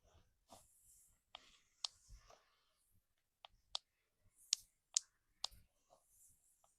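Spine joints being cracked: about seven sharp, brief cracks at irregular intervals, the loudest two about halfway through, with softer rubbing of hands on the back between them.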